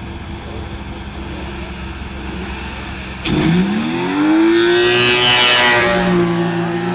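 A BMW car engine runs with a low steady rumble, then about three seconds in is revved hard. Its pitch climbs quickly and holds high for a few seconds before easing slightly near the end.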